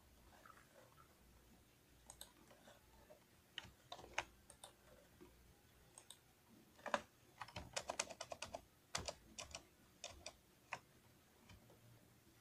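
Faint computer keyboard clicks: scattered single key presses, with a quick run of them about seven to eight and a half seconds in.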